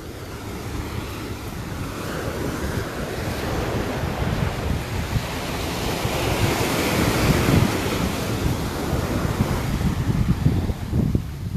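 Sea waves breaking and washing up a beach: the surf swells to a peak about two-thirds of the way through, then falls away near the end. Wind buffets the microphone with a low rumble throughout.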